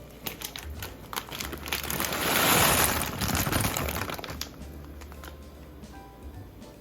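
Plastic packaging being crinkled and handled, with a few sharp clicks at first and the crinkling loudest about two to three seconds in, then fading.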